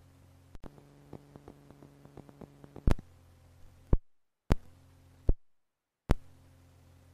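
Gorenoise recording: a steady low electrical hum with a scatter of small clicks, then five loud sharp pops. Twice the hum cuts out abruptly to dead silence and comes back, each cut marked by a pop.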